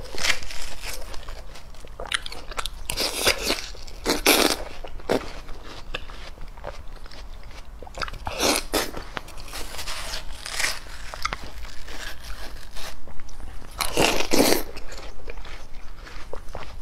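Close-miked eating of fresh watermelon: a metal spoon scoops into the flesh, then wet, crunchy bites and chewing come in irregular bursts. The loudest burst is about 14 seconds in.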